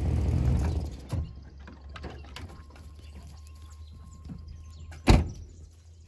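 Pickup truck engine running low and steady, louder for the first second. About five seconds in, a vehicle door shuts with a single loud thump.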